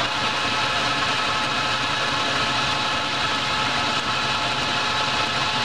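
Clausing metal lathe running with its chuck spinning: a steady machine hum with several held higher tones over it.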